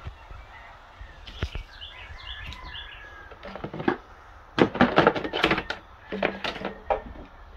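Knocks and clatter, most of them in the second half, as plastic trays and storage boxes are handled on a table, with a few faint bird chirps before that.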